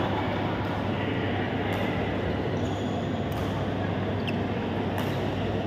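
Steady rumbling hum of a large badminton hall with its fans running. A few faint, sharp racket-on-shuttle clicks from the courts sound through it, and one brief high squeak comes near the end.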